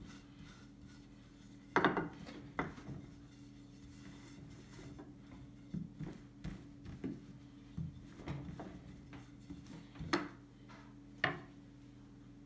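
Long thin wooden rolling pin rolling out a sheet of dough on a wooden table: soft rubbing with scattered knocks of wood on wood, the loudest about two seconds in and twice near the end. A steady low hum runs underneath.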